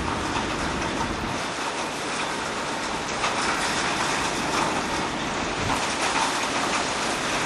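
Storm wind blowing hard and steadily, a dense rushing noise with small ticks and rattles through it.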